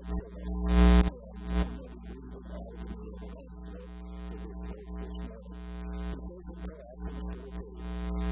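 Steady electrical mains hum through the church sound system, with faint shifting tones above it and a brief louder burst about a second in.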